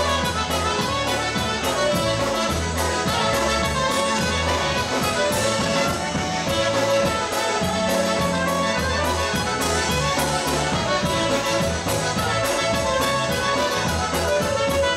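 Live polka band playing an instrumental break: trumpet and clarinet over concertina, bass guitar and drums, with a steady bouncing two-beat rhythm and the cymbal ticking about four times a second.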